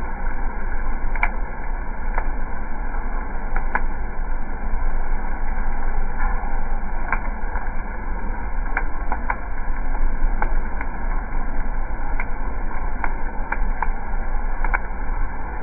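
Dark-roasted coffee beans churning in a drum roaster's cooling tray as its rotating stirring arms sweep through them: a steady rustling over a low hum, with scattered sharp clicks.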